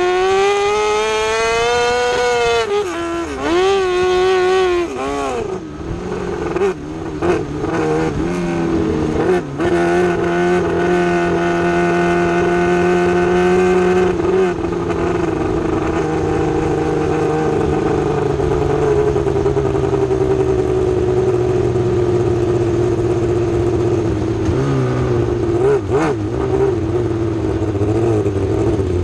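600cc micro sprint car's motorcycle-derived engine, heard from the cockpit while lapping at speed. The revs climb in the first couple of seconds, rise and fall as the throttle is lifted and reapplied for the turns, hold high and steady for a few seconds, then slowly ease off, with a brief lift-and-pickup near the end.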